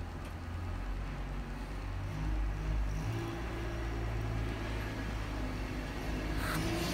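A steady low mechanical rumble and hum, its pitch shifting about three seconds in, with a brief rustle near the end.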